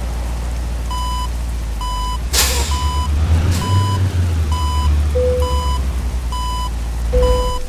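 Vehicle reversing alarm beeping steadily, about once a second, over the low drone of a running engine. A loud sharp hiss comes a little over two seconds in, and two short lower tones sound in the second half.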